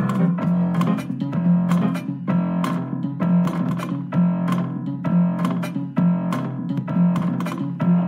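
Prepared-piano instrumental music: a fast, repeating pattern of muted, plucked-sounding notes over a low note that returns about once a second.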